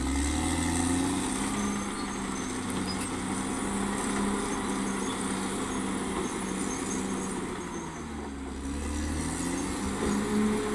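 Caterpillar D6R XL bulldozer's diesel engine running steadily, its note dipping and rising back twice: near the start and again near the end.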